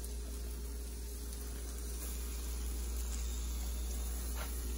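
Scrambled eggs and sausage links sizzling steadily on a Blackstone E-Series electric griddle, over a constant low hum.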